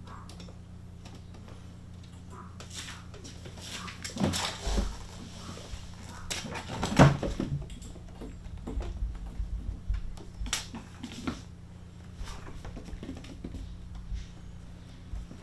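Maine Coon kittens scrambling and pouncing on the lid of a plastic pet carrier: scattered scratches, taps and thumps of paws and bodies on hard plastic, the loudest thump about seven seconds in. A steady low hum runs underneath.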